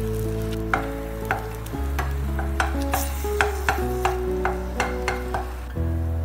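Wooden spatula knocking and scraping against a stone-coated frying pan, about three sharp knocks a second, while an egg and tomato mixture fries in it. Background music plays underneath.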